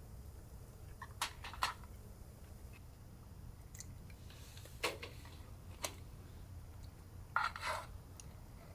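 A handful of light clicks and knocks, about five in all, two close together early, single ones in the middle and a short cluster near the end, over a steady low hum.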